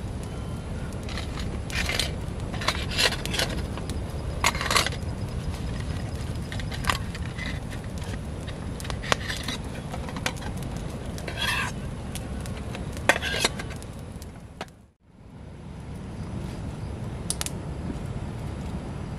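Campfire crackling with sharp pops, over a steady low rumble, while metal cooking gear at a portable gas stove is handled with short clinks and scrapes. The sound fades out and back in once, about fifteen seconds in.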